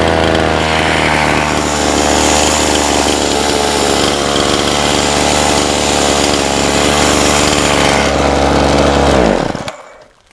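Petrol two-stroke chainsaw idling steadily, then shut off about nine seconds in, its engine note dropping as it winds down to a stop.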